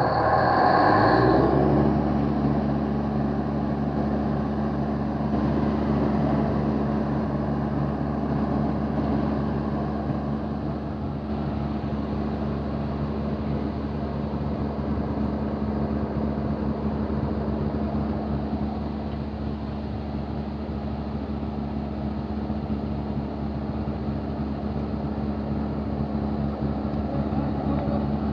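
Diesel engine of a truck-mounted borewell drilling rig starting up, its pitch rising over the first two seconds, then running steadily with a constant drone.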